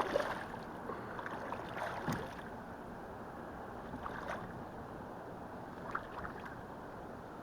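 Water splashing and slapping against a kayak's hull over a steady rush of wind and water, with a few sharper splashes about two seconds apart.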